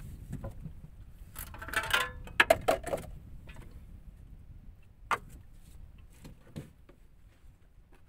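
Handling noises at a small gasoline boat engine: a run of clattering knocks and clicks about one and a half to three seconds in, then a few single taps, as the fuel tank is opened and a plastic fuel container is handled for refuelling.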